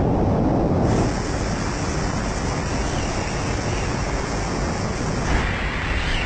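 Wind rushing over a camera microphone in wingsuit flight at about 135 km/h: a steady rush of air noise that changes character about a second in.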